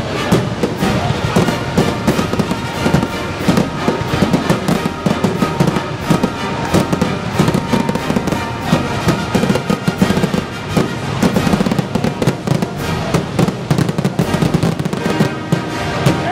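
Fireworks finale: aerial shells bursting in a dense, unbroken barrage of bangs, with music playing along underneath.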